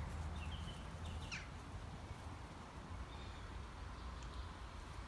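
A few short bird chirps, one a quick downward-sweeping whistle about a second in, over a low steady rumble.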